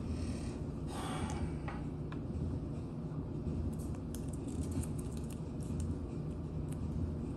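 Small clicks and rustles of fingers handling a plastic cord organizer and picking at the paper backing of its adhesive pad, with a short rustle about a second in, over a steady low hum.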